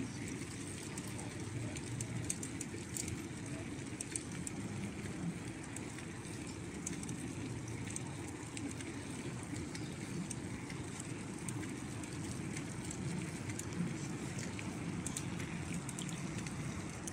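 Wind rumbling on a phone microphone outdoors, with scattered faint ticks.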